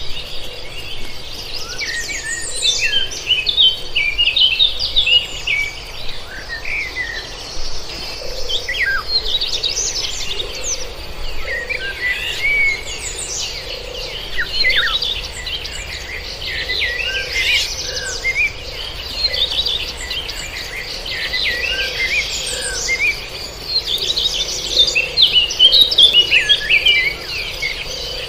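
Several birds singing and chirping in busy, overlapping clusters of short notes, over a steady high-pitched insect buzz.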